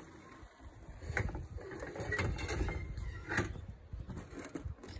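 A few short knocks and scrapes as a stainless steel French press carafe holding ground coffee is handled over a table, over an uneven low rumble.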